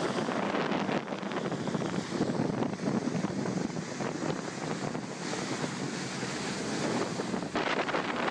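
Wind blowing across the microphone: a steady rushing noise with no let-up.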